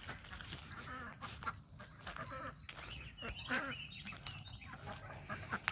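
Ducks giving faint, soft quacking calls, several short calls one after another.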